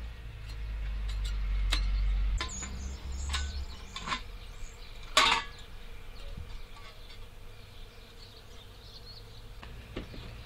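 A handful of separate knocks and scrapes of a sheet-metal blade being worked against a wooden stump, the loudest about five seconds in and a last one near the end. A low rumble underlies the first few seconds and then fades.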